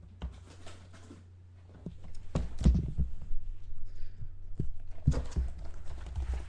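Handling noises: scattered thunks and short rustles of things being moved about on a table, starting about two seconds in, over a steady low hum.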